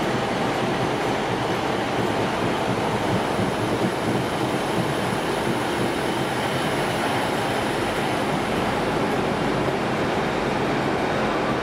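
Diesel multiple units at a station platform: a green GWR unit pulls slowly past on the adjacent line while Class 158 unit 158959 stands with its engines running. The engine and rail noise is steady throughout.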